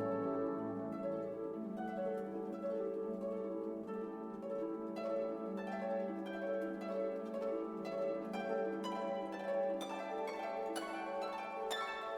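Soft instrumental music: plucked, harp-like notes over a held low note, the plucking growing busier in the second half.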